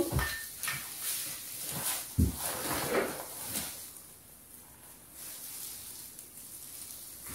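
Rustling and scraping of artificial Christmas tree branches being handled and shifted, with a soft knock about two seconds in.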